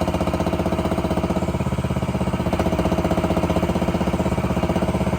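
The 13.5-horsepower engine of a MIVA VA15P mini excavator running steadily with rapid, even firing pulses as the machine is put through a demo.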